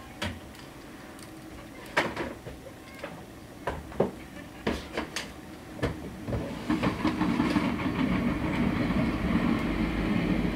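A few sharp clicks, then a train running past on the line from about six seconds in, its wheels on the rails growing into a steady loud rumble.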